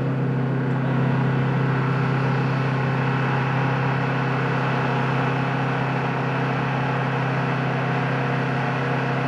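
Steady machine drone: a low hum with several overtones, unchanging in pitch and level.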